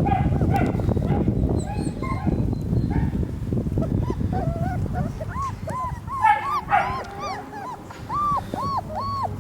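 Three-week-old German shepherd puppies whimpering, over dense low rustling for the first half; from about five seconds in comes a run of short, high, arching squeals, about two a second.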